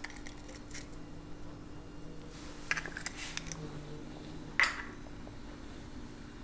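Eggshell being pulled apart over a glass bowl: a few faint clicks and crackles, then one sharper click about four and a half seconds in. A steady low hum runs underneath.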